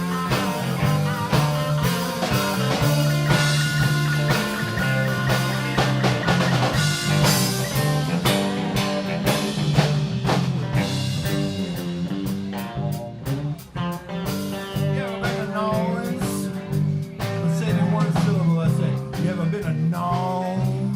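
Live blues band playing an instrumental passage: an electric guitar plays lead lines with bent notes over a steady bass line and a drum kit.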